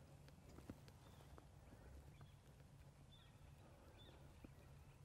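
Near silence: faint outdoor ambience with a few short, faint high chirps and scattered small ticks over a low steady rumble.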